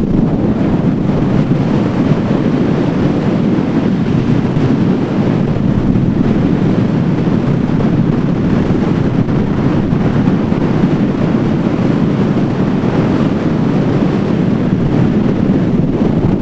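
Steady wind rushing over the microphone on the deck of a moving ferry, with the rush of the bow wave breaking along the hull beneath it.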